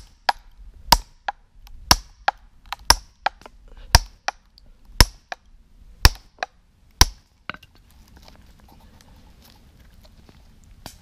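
An axe splitting a log with repeated sharp knocks, about one a second, each followed by a lighter knock. The knocks stop after about seven and a half seconds as the wood splits apart.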